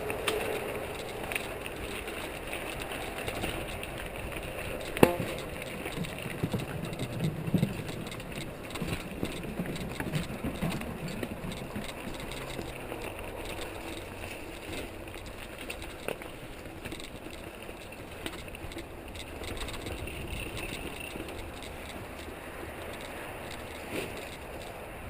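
Mountain bike riding over a dirt and rock trail: steady tyre noise with the bike's chain and frame rattling and clicking over bumps. A single sharp knock about five seconds in is the loudest sound.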